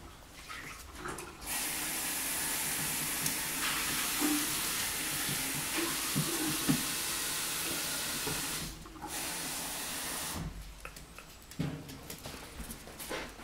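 Water tap running steadily for about seven seconds, filling the puppies' water bowl, then shut off. A weaker rush and a few light knocks follow near the end.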